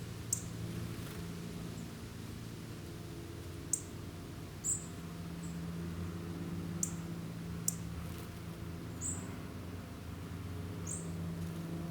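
Small songbirds giving short, sharp, high-pitched call notes, about seven scattered single chips, over a steady low background rumble.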